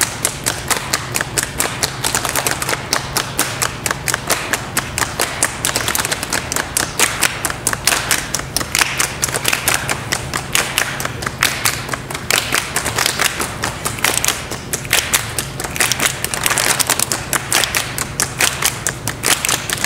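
A group clapping hands together in a fast, steady, even rhythm.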